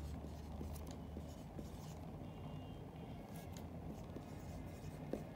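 Whiteboard marker writing on a whiteboard: faint, short scratchy strokes as numbers are written, over a low steady hum.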